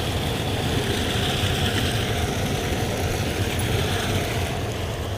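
Steady rush of river water pouring over a concrete waterfall, the flow raised by recent rain.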